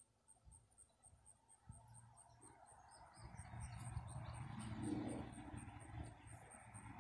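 Rustling and rumbling noise of a phone being handled and moved, building from about two seconds in and loudest near the middle, over faint insect chirping in steady pulses about five a second. No shots are fired.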